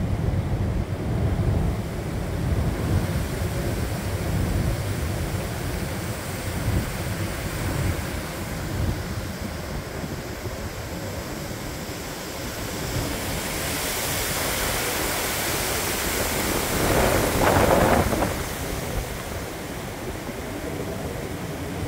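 Gusty hurricane wind rushing through tall backyard trees, the leaves hissing, with the wind buffeting the microphone as a low rumble. A stronger gust swells and fades about three-quarters of the way through.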